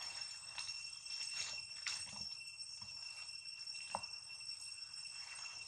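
Steady high-pitched insect drone in two constant tones, with a few faint rustles and one sharp click about four seconds in.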